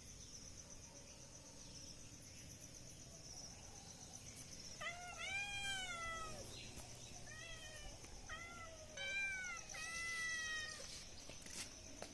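Domestic cat meowing four times, starting about five seconds in: two long drawn-out meows with two short ones between them.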